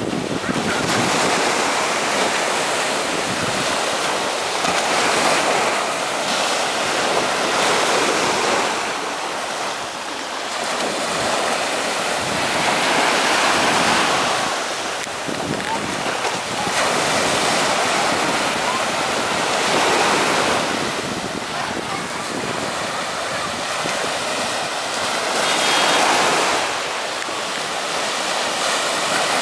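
Small sea waves breaking and washing up a sandy beach. The surf swells and falls back every three to four seconds.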